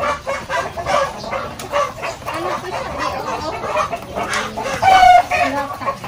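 Gamefowl roosters clucking and calling over one another, with one loud, held call about five seconds in.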